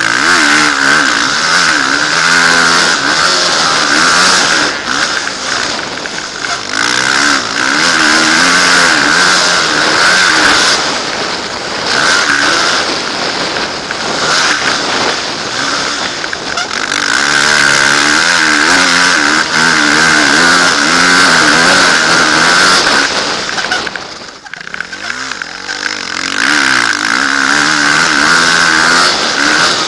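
Motocross dirt bike engine revving hard and easing off again and again as it is ridden round a dirt track, the pitch climbing and falling with each burst of throttle. A loud rushing noise runs under it, and a little after three-quarters of the way through the engine drops right off before it picks up again.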